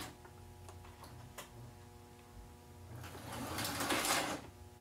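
American Flyer 21927 Alco toy diesel locomotive running along its track, its electric motor and gears whirring over a steady hum with sharp clicks from the wheels. It grows louder about three seconds in, then cuts off suddenly at the end. It is running forward only: its two-position reverse unit will not reverse it.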